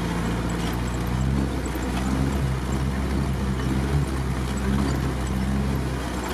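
Off-road vehicle's engine running steadily, heard from inside the cabin while driving through a flooded, muddy track, with the engine note strengthening about a second in.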